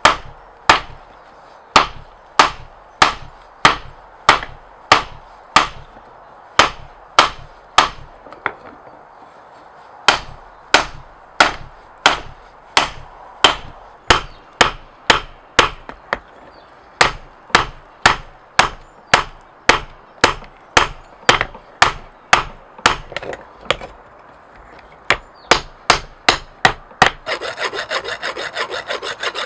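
Steel being forged: a steady rhythm of hammer blows, about two a second, each with a short bright metallic ring, pausing twice briefly. Near the end the blows stop and a file rasps quickly back and forth on the steel.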